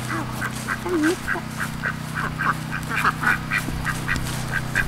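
Duck quacking in a quick run of short quacks, about three or four a second, over a steady low hum.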